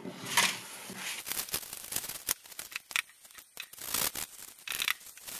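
Paper towel rubbing and crinkling as it wipes a small etched circuit board, in a series of short scratchy strokes.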